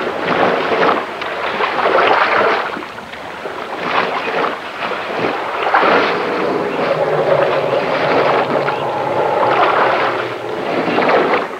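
African elephant herd wading and drinking in a river, water splashing and sloshing unevenly as they crowd in.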